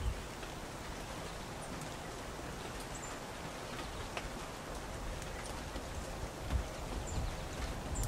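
Outdoor ambience with a steady hiss, a few brief high chips from small birds and scattered light ticks, with a single low thump about six and a half seconds in.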